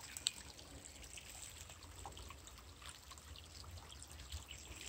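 Faint trickle of a small forest brook running over rock, with a few light ticks and one sharper click shortly after the start.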